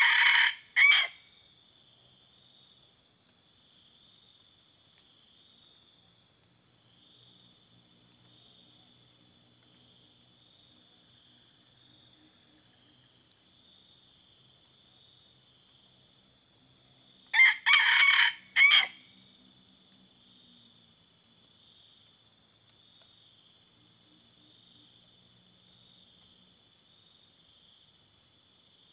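Jungle rooster crowing twice, short crows, one right at the start and another about 17 seconds in, over a steady high-pitched buzz of insects.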